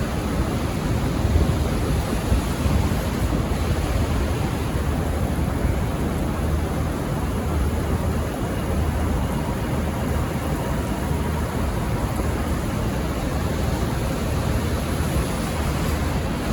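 Steady low rumble of a V/Line VLocity diesel railcar set, with no horn sounding.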